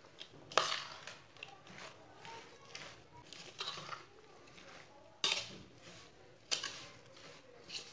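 A spoon stirring shredded cabbage with spices in a bowl: the mixture rustles, and the spoon scrapes and clinks against the bowl in irregular strokes, the sharpest about half a second in.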